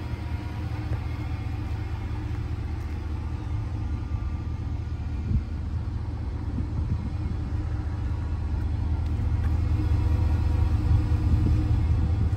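Ford 6.2-litre gasoline V8 idling steadily, a low rumble that grows somewhat louder near the end.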